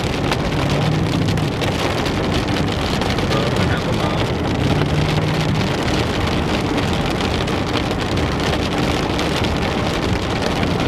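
Steady road noise from inside a moving vehicle: tyre and engine hum under a constant noisy hiss.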